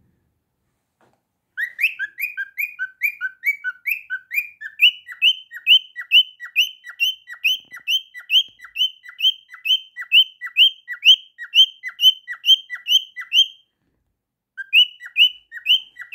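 Cockatiel giving a long run of short, repeated chirps, about three a second, which breaks off for about a second near the end and then starts again.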